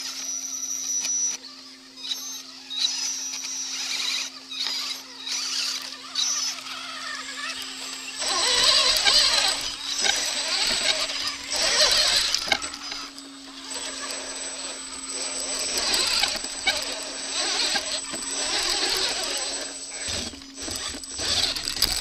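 Onboard sound of a 1/8-scale Redcat rock crawler with a brushless electric motor: the motor and drivetrain whine while the tyres scrabble and crunch over creek-bed gravel and rocks. The rough scrabbling gets louder and busier about eight seconds in.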